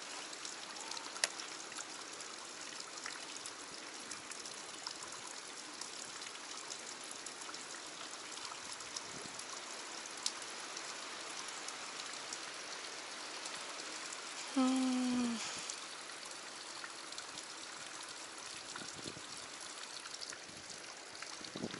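Steady hiss of flowing stream water in a rocky gorge, with a few faint clicks. About two-thirds of the way in, a brief pitched sound rises above it, the loudest moment.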